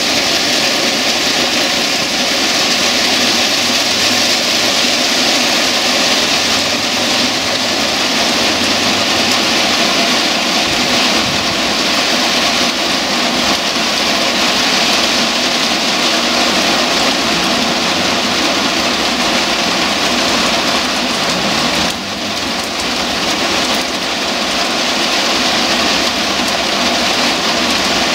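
Heavy rain falling, a loud steady hiss that dips briefly about two-thirds of the way through.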